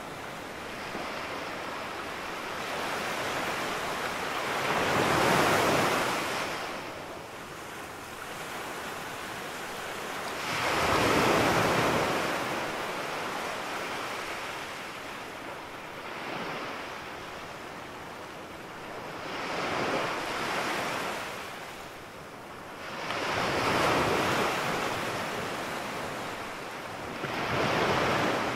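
Small waves breaking and washing up a sandy beach, the surf swelling and fading about every four to six seconds over a steady wash of water.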